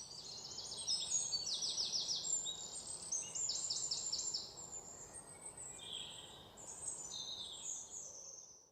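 Songbirds chirping: runs of quick, high, falling notes, several in a row, repeated throughout over a faint, steady background hiss.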